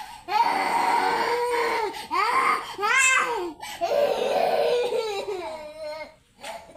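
Baby crying: three long wails in a row, each with a short catch of breath between.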